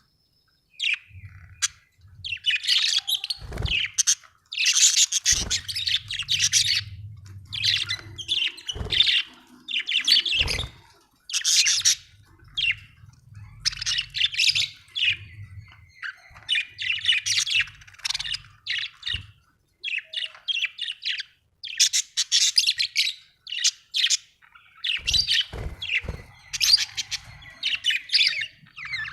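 Budgerigar chirping and chattering in quick, scratchy bursts, with brief pauses between phrases.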